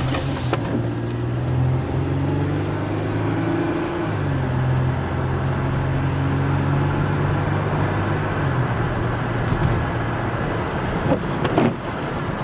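Toyota Sienna minivan's engine and road noise heard from inside the cabin while driving, a steady hum whose tone shifts about four seconds in. A couple of sharp knocks near the end.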